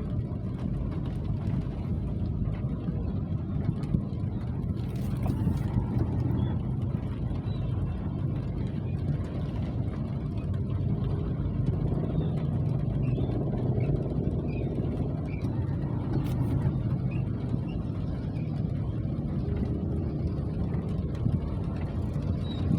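Steady low rumble of rain, with a few faint small ticks above it.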